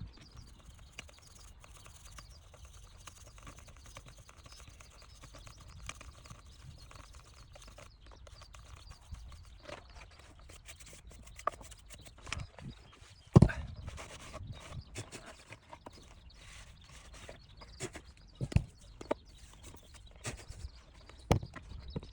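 Irregular clicks and knocks of a car's heater blower motor and fan being handled and cleaned of leaves and dust by hand, with one sharp knock about thirteen seconds in.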